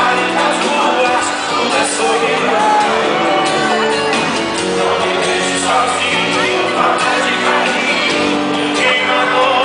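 Live sertanejo concert music: a band playing with singing, and the crowd shouting along.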